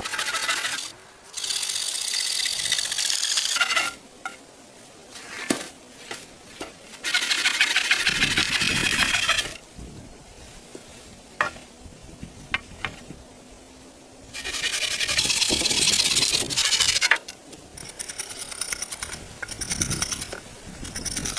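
Wood being worked with a hand tool: three bouts of rasping strokes, each two to three seconds long, with a few sharp knocks and clicks in between.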